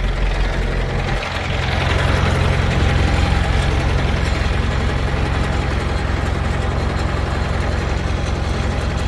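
A vehicle engine running steadily, its low note shifting about a second in.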